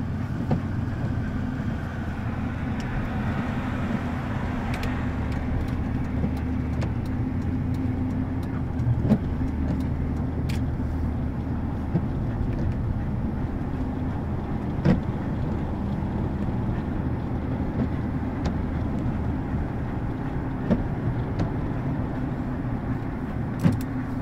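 Steady engine and road noise heard inside the cab of a moving pickup truck, with a few short knocks and clicks scattered through it.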